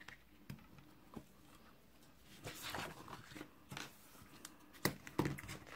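Small scissors snipping into cardstock in a few short, faint cuts, with rustles of the stiff card being handled; the loudest snips and rustles come near the end.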